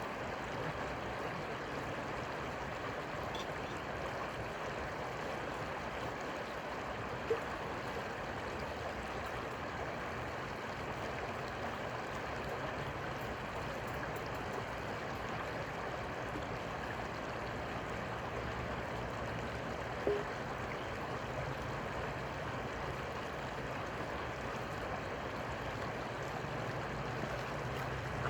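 Steady rushing of flowing river water, with two brief clicks about a third and two thirds of the way through.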